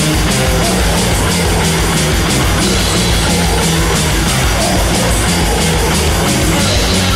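Loud heavy metal music: distorted electric guitar riffing over a fast, driving rhythm, dense and steady in level.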